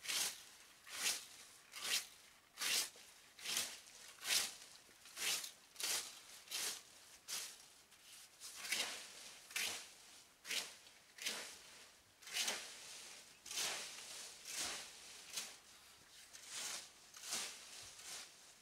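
Fan rake scratching through fallen leaves and grass in regular strokes, a little more than one a second.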